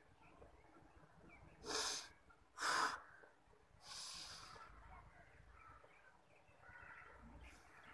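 A person's forceful breaths: two short hard exhales about a second apart, then a longer, softer breath out.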